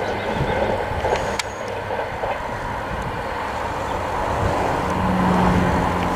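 East Coast InterCity 225 set (Class 91 electric with Mk4 coaches), driving van trailer leading, approaching: a steady rumble of wheels on rail that builds slowly, with a low steady hum joining about five seconds in.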